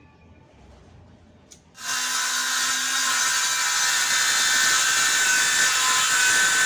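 Electric circular saw switched on about two seconds in after a short click, then running loud and steady.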